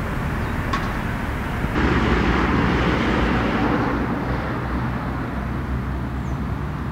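Road traffic noise, with a vehicle passing that swells about two seconds in and fades out by about five seconds.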